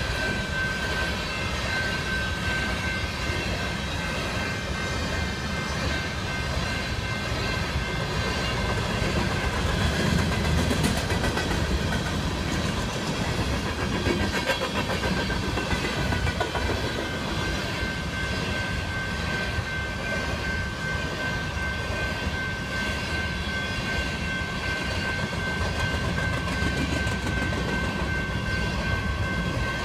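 Long freight train of covered hopper cars rolling steadily past, its wheels rumbling low on the rails. A thin, steady high tone sits over the rumble.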